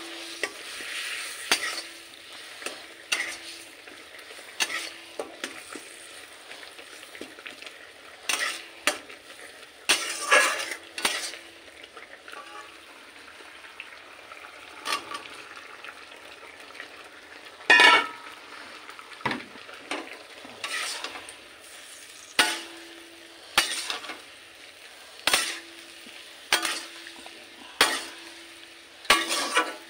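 Food sizzling in oil in an iron kadai, stirred with a metal spatula that scrapes and clinks against the pan every second or two. Cut vegetables are tipped into the hot pan partway through.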